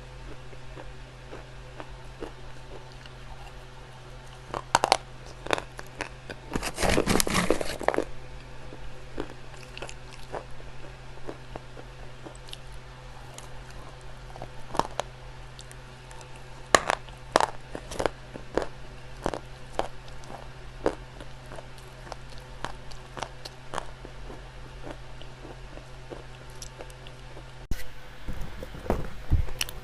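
Clay crunching and cracking in irregular sharp snaps, with a dense run of crackling about seven seconds in, over a steady low hum.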